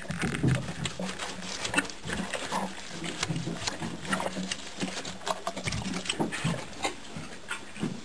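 Horse eating bran mash out of a rubber feed pan: many small wet smacks and clicks of lips and muzzle working at the pan.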